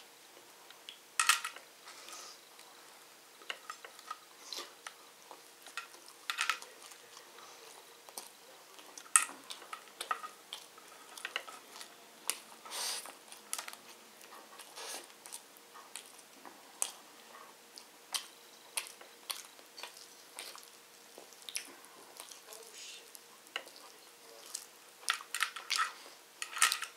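Mouth sounds of a person eating chicken biryani by hand: irregular chewing with wet clicks and smacks, a few much louder than the rest, and a dense run of them near the end. A faint steady hum runs underneath.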